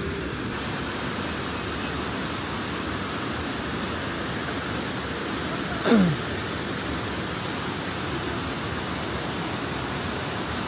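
Steady rush of a mountain river running over rocks. About six seconds in, one short squeal slides steeply down in pitch, the loudest moment.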